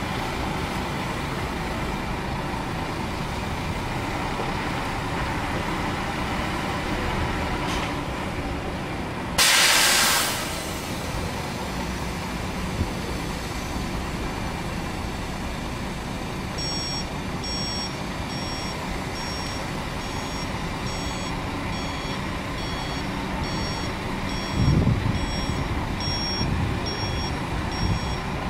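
Bus diesel engines running, with a loud hiss of air from a coach's air brakes about a third of the way in. From a little past the middle, a reversing alarm beeps roughly twice a second as a Mercedes-Benz coach manoeuvres, and its engine surges louder near the end.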